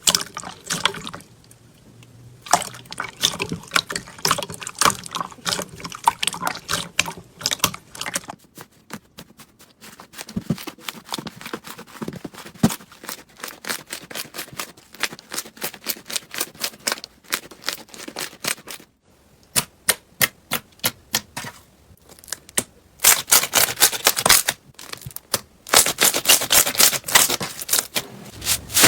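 Slime being squeezed and poked by hand, making rapid runs of wet clicks and crackling pops that come in bursts. The bursts grow denser and louder over the last few seconds.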